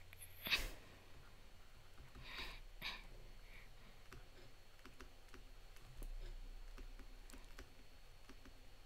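Faint scattered clicks and taps of handwriting being entered on a computer, with a brief noisy burst, the loudest moment, about half a second in and a softer one near three seconds.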